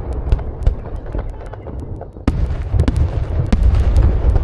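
Fireworks display: rapid sharp cracks and bangs over a continuous low rumble of bursting shells, with a sudden loud boom a little over two seconds in.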